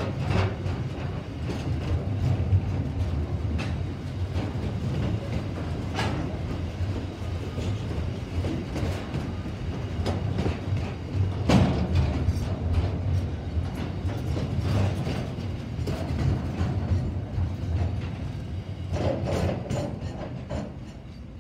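Container freight train wagons rolling past: a steady low rumble of steel wheels on rail, with sharp clicks about 6 and 11 seconds in. The sound fades near the end as the last wagon goes by.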